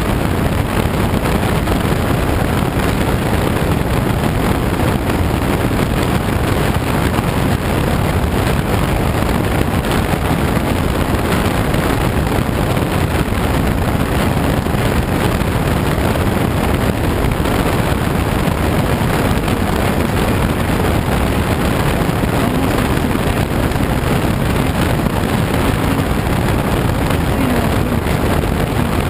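Steady rush of air over a glider in flight, heard from inside the cockpit.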